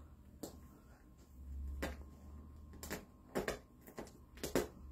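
A handful of faint, irregular taps and knocks, two of them close together near the end, over a low rumble.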